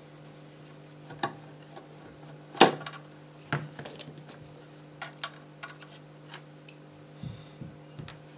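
Scattered light clicks and knocks of a screwdriver and small screws being handled and set down on a workbench, the loudest about two and a half seconds in, over a faint steady hum.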